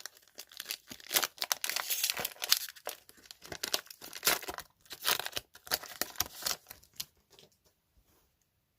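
Foil Pokémon trading-card booster pack being torn open and its wrapper crinkled: a run of sharp crackling rustles that dies away about seven seconds in.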